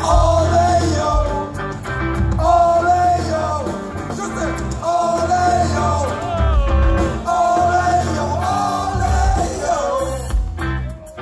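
Live rock band playing: two vocalists singing together over electric guitars, bass and drums, heard from within the audience. About ten seconds in the singing stops and the guitars and drums carry on.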